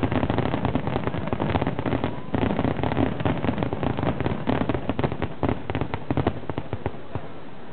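A large aerial fireworks display with many shells bursting in quick, overlapping succession, crackling over a low rumble. The bursts thin out near the end.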